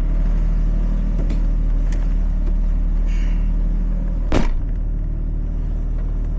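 Toyota Supra's engine running at a steady speed, heard from inside the cabin, with one sharp click or knock about four seconds in.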